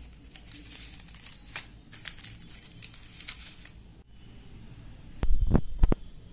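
Foil wrapper of a chocolate bar crinkling and tearing as it is peeled open by hand. Near the end come a few loud dull thumps.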